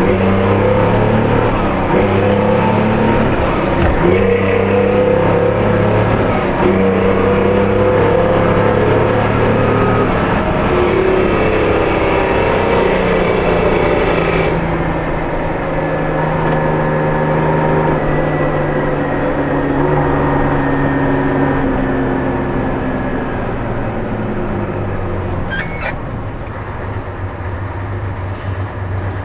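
Detroit Diesel 6V-92 two-stroke V6 diesel pulling the truck, its pitch climbing and dropping back with each gear change. It then comes off the throttle and winds down slowly as the truck slows. A short air-brake hiss comes near the end as it stops.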